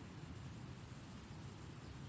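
Faint, steady outdoor ambience: a low even rumble with a soft hiss above it, and no guitar playing.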